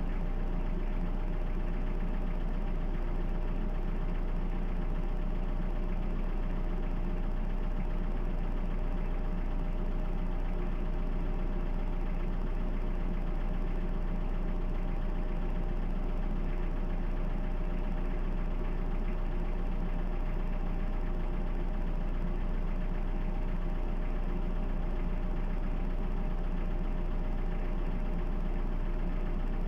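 Toyota 2C four-cylinder diesel engine idling steadily, with the typical diesel knock.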